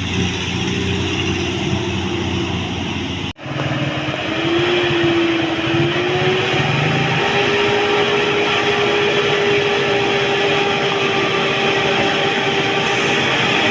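Road traffic noise from a bus running past, broken by a sudden cut about three seconds in. Soon after the cut, a steady single-pitched tone rises slightly and then holds for most of the rest.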